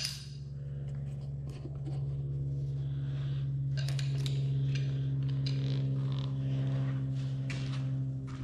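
Small metal clicks and clinks, like hand tools being picked up and handled, over a steady low mechanical hum.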